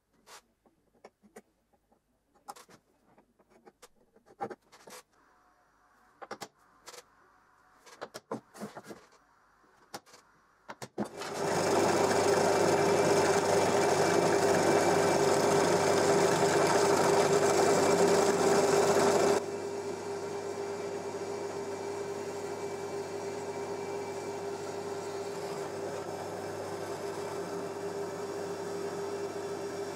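Bench drill press running and drilling into an aluminium plate, a steady motor hum with one strong tone. It starts about a third of the way in, after scattered small clicks and knocks of handling. A little past halfway it suddenly drops to a lower level and keeps running steadily.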